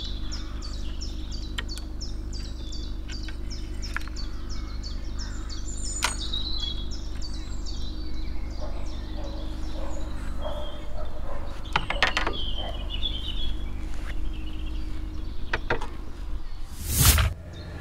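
Songbirds singing in woodland, one repeating a quick series of high chirps for the first few seconds, over a steady low hum. There are a few light clicks, and a brief loud rush of noise near the end.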